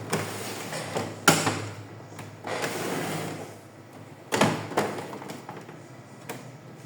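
Plastic knocks and scraping from an HP LaserJet M1132 printer's casing being handled, with two sharp knocks, one over a second in and one past the middle.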